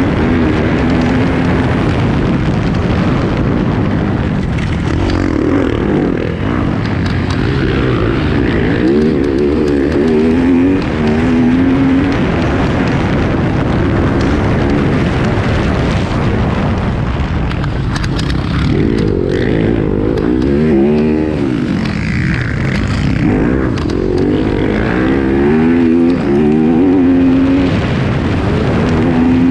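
2019 Yamaha YZ250F four-stroke single-cylinder engine revving up and falling back several times as the rider works the throttle and gears, with wind rush over the helmet-mounted camera. Light clicking from the camera's unlatched back case rattles over it.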